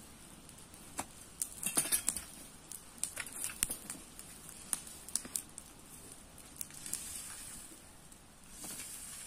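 Irregular crackles and scrapes: a metal leaf rake dragging through dry grass and twigs next to a small brush fire that crackles as it burns.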